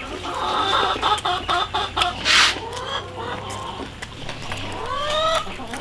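Chickens clucking, with a few drawn-out hen calls rising in pitch near the end. There is a short burst of noise about two seconds in.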